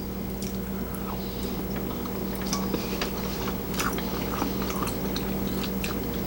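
Close-up eating sounds: wet chewing and mouth smacks with scattered small clicks, as a mouthful of japchae glass noodles dipped in sauce is eaten. A steady low hum runs underneath.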